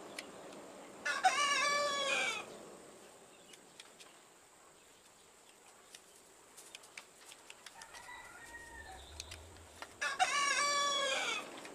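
A rooster crowing twice, each crow about a second and a half long, the second coming about nine seconds after the first. Faint light clicks and knocks fall between the crows.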